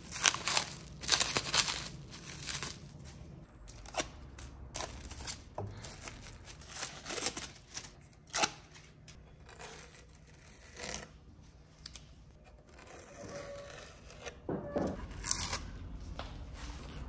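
Clear protective plastic film being peeled off new scooter parts: a series of short rips and crinkles at irregular intervals.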